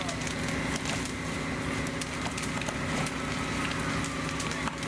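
A burning wood-frame house crackling, with many sharp pops and snaps. Under it a steady engine drone runs.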